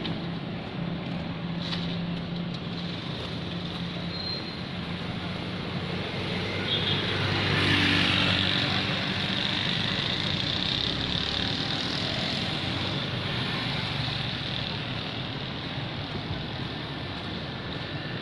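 Road traffic on a wet street: a steady engine hum and tyre hiss, with a vehicle passing and swelling louder about eight seconds in.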